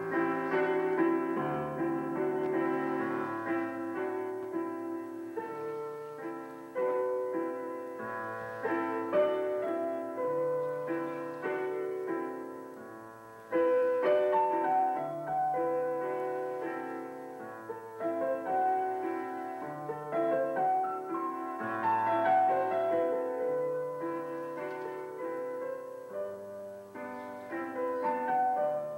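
Piano music, chords and a melody of held notes that ring and fade. It dips quieter a little before halfway, then comes back in with a sudden loud chord.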